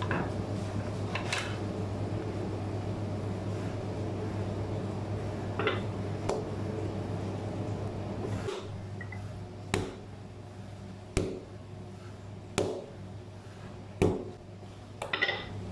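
A wooden rolling pin works a stiff bread dough on a floured worktable, with a steady rumble that stops about halfway through. Then the dough is folded and pressed by hand with a series of sharp knocks on the table, about one every second and a half.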